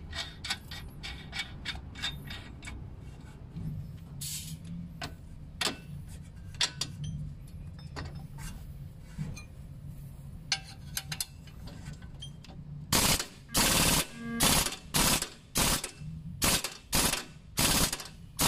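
Impact wrench run in a series of short hammering bursts over the last five seconds or so, tightening the nut on the lower strut-to-steering-knuckle bolt. Before that, light metallic clicks and taps as the bolt and nut are fitted by hand.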